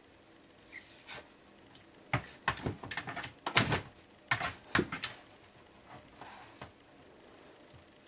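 A Briard dog rummaging with its nose and head in a shelf cubby, knocking and rattling a basket: a run of clattering knocks for about three seconds, then a couple of softer ones.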